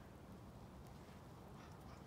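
Near silence: faint outdoor ambience with a low rumble and a few soft ticks near the end.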